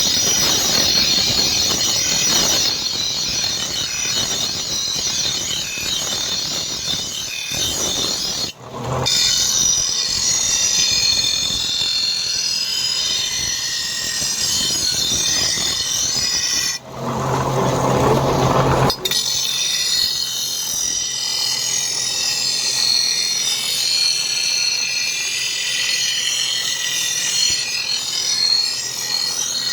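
Steel being ground with a power grinder, a loud, continuous, high-pitched grinding hiss, in several edited stretches with a short stretch of steady motor hum between them.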